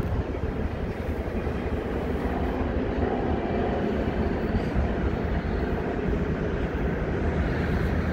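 Freight train passing at a distance, a steady low rumble with no breaks.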